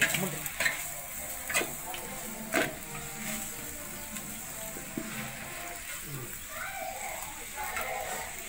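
Sliced onions, chillies and garlic sizzling as they fry in a metal pot over a wood fire, with a steel ladle scraping and knocking against the pot as it is stirred, several sharp knocks in the first few seconds. Faint voices near the end.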